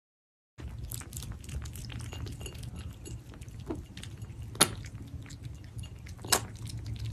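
Mother cat licking and grooming her kittens close to the microphone: many small wet clicks and smacks over a steady low rumble, with two sharper, louder clicks, one about four and a half seconds in and one near the end.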